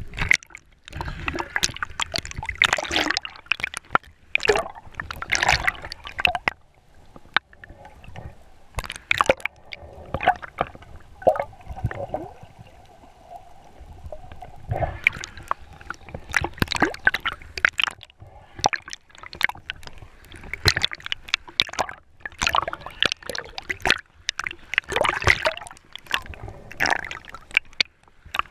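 Water gurgling and sloshing around a submerged action camera, with splashes and bubble noise coming in irregular clusters every few seconds.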